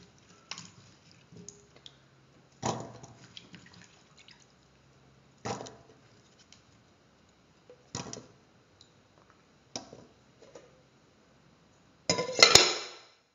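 Pieces of raw yam landing one after another in a stainless steel pressure cooker pot, each a short wet thud on the steel every couple of seconds. A louder, longer clatter comes near the end.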